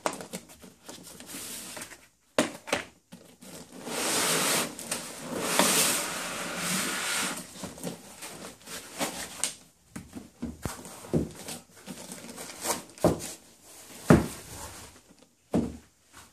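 Unpacking: a cardboard box and foam packing blocks scraping and rustling as the plastic-bagged unit is slid out, with a long rustle a few seconds in. Then a run of sharp knocks as pieces are set down on the table, the loudest late on.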